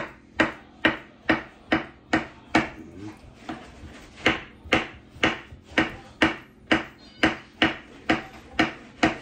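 Knife slicing a banana into rounds on a cutting board: a steady series of sharp knocks of the blade on the board, about two a second.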